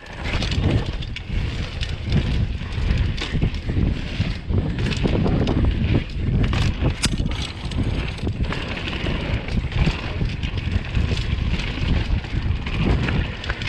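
Mountain bike clattering down a rough, wet, rocky trail, with many irregular knocks from the wheels and frame and wind rushing over the microphone.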